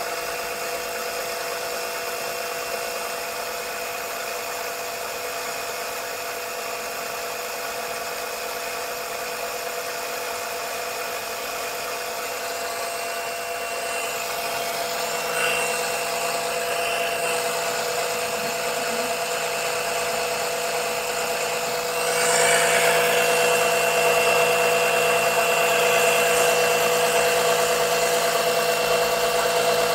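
Small motorised oil-suction pump running steadily, drawing engine oil up a tube from the sump. About two-thirds of the way through it gets louder and its tone changes.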